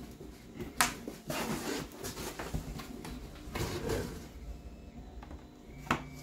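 Large flat panels being lifted out of a cardboard shipping box, cardboard flaps scraping and rustling, with a sharp knock about a second in and another near the end.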